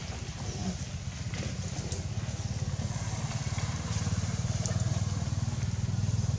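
An engine running, low-pitched and getting gradually louder.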